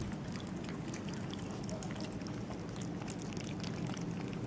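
Several cats eating wet cat food, chunks in gravy, from plastic tubs: irregular soft wet chewing and smacking clicks.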